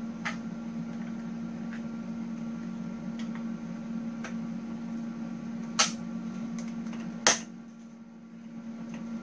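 A black grip sleeve being worked onto a steel cart handle: light clicks and taps, with two sharper clicks about six and seven seconds in, over a steady low hum.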